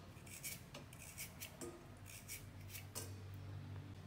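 Carrot being sliced with a handheld metal crinkle-cut garnish cutter: a series of faint, short, crisp cutting strokes, a few each second.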